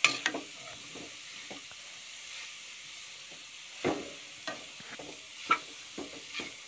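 Grated carrots sizzling steadily in hot ghee in a kadhai as they are stirred. A metal spoon scrapes against the pan a few times, loudest about four seconds in.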